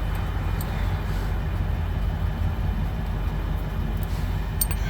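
Steady low rumble of an idling vehicle engine, with a few light metallic clicks near the end.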